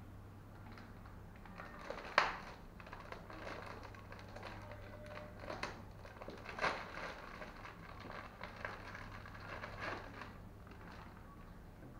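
Steady low hum, typical of an aquarium's air pump or filter, with scattered sharp clicks and crackles over it, the loudest about two seconds in.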